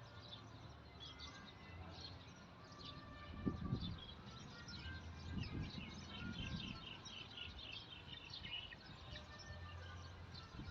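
Small birds chirping and twittering in many short, quick calls, busiest in the middle of the stretch. A few dull low thumps come about three and a half seconds in and again around five to six and a half seconds in.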